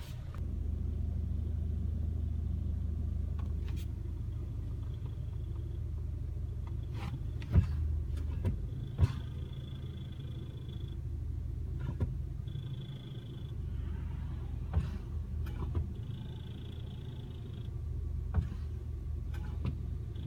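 2009 Hyundai Elantra engine idling steadily, with scattered sharp clicks and a few short high-pitched tones over it.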